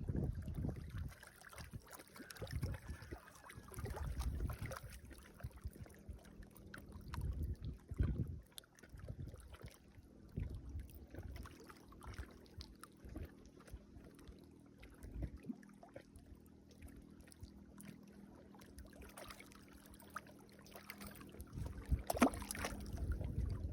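Gusty low rumble of wind buffeting the microphone outdoors, coming and going in surges, with scattered faint clicks and, from about ten seconds in, a faint steady low hum.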